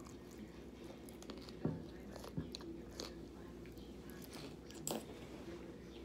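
A person biting into and chewing waffle fries smothered in melted vegan cheese, close to the microphone: a few soft wet smacks and mouth clicks, the loudest nearly two seconds in and just before five seconds, over a faint steady hum.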